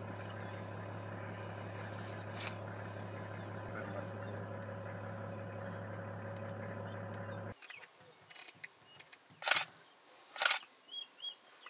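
Steady low hum of an idling vehicle engine, cutting off abruptly about two-thirds of the way through. After it come two sharp clicks about a second apart and, near the end, two short high chirps.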